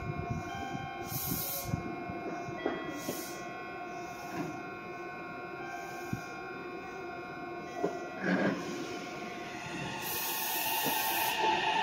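Meitetsu electric train pulling out of the platform with a steady hum of tones. Near the end the traction motors' whine starts rising in pitch as the train accelerates.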